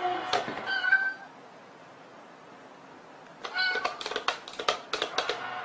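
Cat coin-bank toy going off: a short meow with rapid clicking from its lid mechanism about a second in, then a longer run of sharp clicks and meowing tones from about three and a half seconds in.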